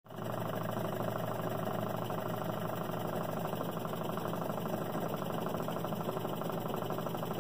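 Jensen model 35 toy steam engine running steadily, belt-driving a small antique butter churn: a fast, even mechanical clatter.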